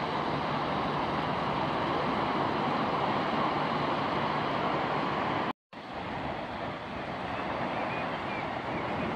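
Steady sea surf washing on the beach, with wind, cutting out briefly about five and a half seconds in.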